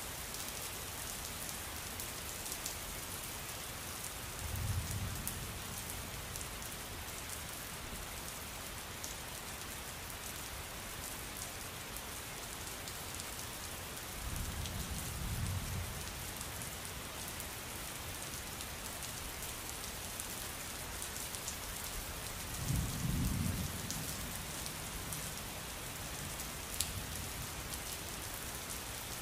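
Steady rain falling on surfaces, with low rolls of thunder three times, each lasting a second or two.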